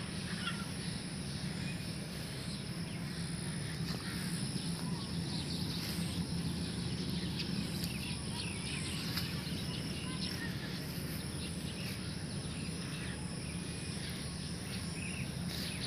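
Steady outdoor field ambience: an even low rumble under a thin, high, steady insect-like whine, with a few faint scattered chirps.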